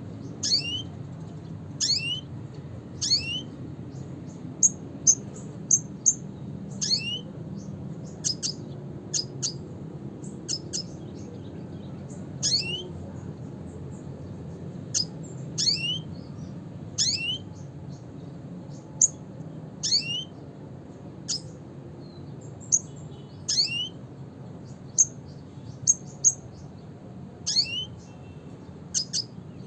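Red siskin calling: short, sharp downward-sweeping notes and brief high chips, repeated irregularly about every one to two seconds, over a steady low background hum.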